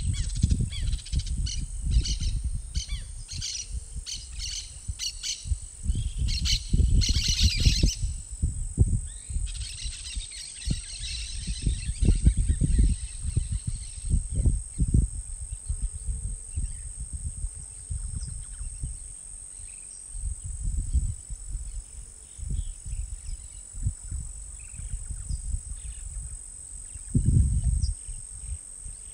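Bird calls repeated in a quick series of short notes for the first several seconds, then a busier chattering stretch, over a steady high-pitched insect drone. Irregular low rumbling runs underneath.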